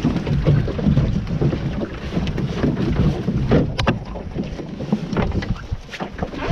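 Wind buffeting the microphone and water rushing along the hull of a Core Sound 17 sailing dinghy, with scattered knocks from lines and gear in the cockpit and one sharp click a little past the middle.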